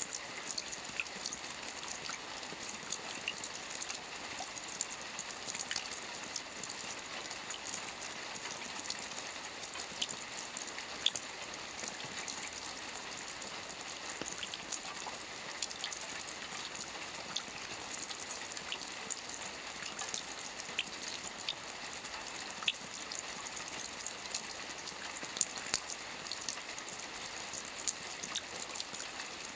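Steady rain, a constant hiss with many individual drops ticking sharply on a surface.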